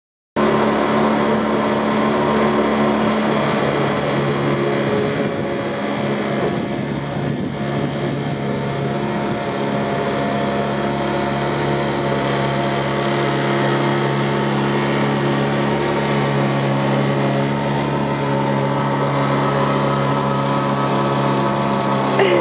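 A small open boat's outboard motor running steadily, pushing the boat along at an even speed.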